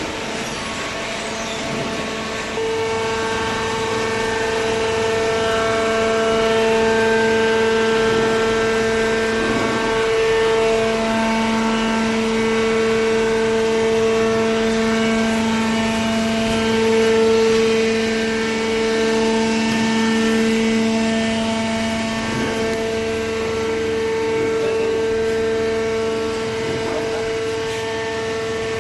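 Hydraulic paper baler's motor and pump running with a steady, loud whine, stepping up in level about two and a half seconds in.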